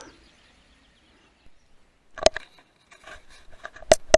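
Handling noise from a scoped rifle: two sharp clicks about a second and a half apart, with light rustling between them.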